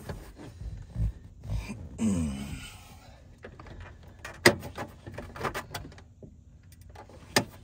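Hard plastic lower dash trim panel under a pickup's steering column being handled and pushed, giving scattered knocks and bumps and two sharp clicks, the louder about halfway through and the other near the end.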